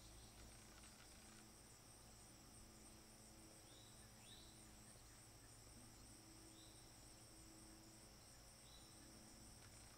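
Near silence: a faint, steady, high-pitched insect trill, with four short high chirps scattered through it.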